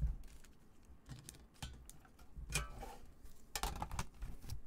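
Plastic insert tray and tin of a trading-card box handled by gloved hands: irregular clicks, taps and knocks, the loudest about halfway through and again near the end.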